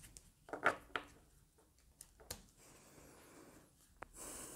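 Tarot cards being handled on a table: a few soft taps as cards are laid down, then a sharp click about four seconds in followed by a brief rubbing slide of card on card.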